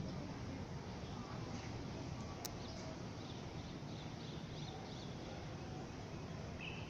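Steady low background rumble of an open railway platform, with a few faint short bird chirps and a single faint click about two and a half seconds in.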